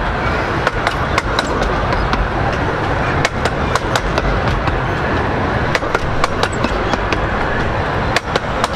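A train of 15-inch-gauge miniature railway coaches rolling past: a steady rumble of wheels on rails, broken by rapid, irregular sharp clicks from the wheels running over the track.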